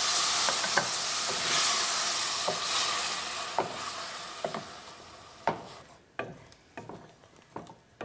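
Tomato, onion and spice curry base sizzling in a stainless steel saucepan while a wooden spoon stirs it. The sizzle fades away over the first five seconds or so, leaving the spoon's scrapes and knocks against the pan.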